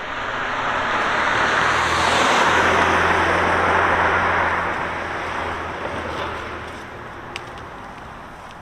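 A car driving past: engine and tyre noise swells over the first few seconds, peaks, then fades away. A single sharp click comes near the end.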